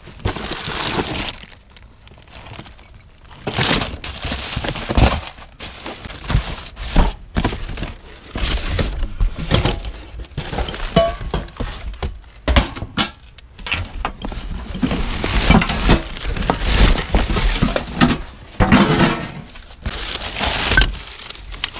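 Hands rummaging through a cardboard box of newspaper-wrapped glassware and dishes: crumpled paper crinkling and rustling, with glass and ceramic pieces clinking and knocking together.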